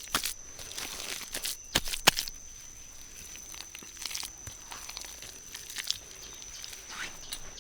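Scattered crackles and a few sharp knocks, loudest about two seconds in, over a thin, steady high-pitched tone.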